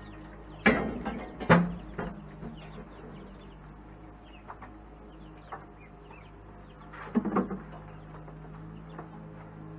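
Baby chicks peeping steadily in short falling notes. A few sharp knocks come about a second in and again around seven seconds, over a low steady hum.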